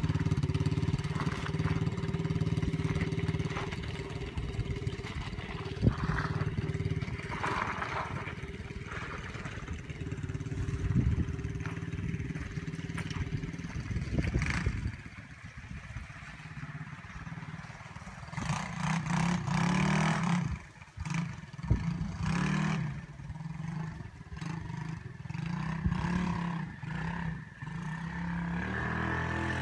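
Small dirt bike's engine running as it rides off down a snowy track, its steady hum fading with distance about halfway through, then revving in uneven spurts farther off.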